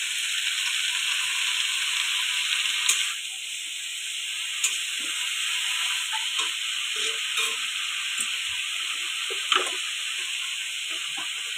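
Pumpkin leaves frying in oil in a metal wok, a steady sizzle, with a metal spatula scraping and clicking against the pan now and then as they are stirred.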